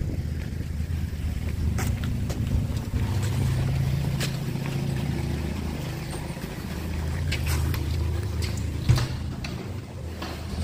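Car engine running, heard from inside the cabin as a steady low hum, with a few light clicks and one sharper knock about nine seconds in.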